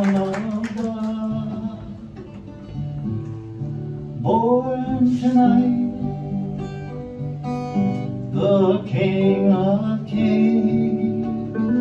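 Live acoustic guitar and hollow-body archtop electric guitar playing together, the electric picking melody lines over the acoustic's chords.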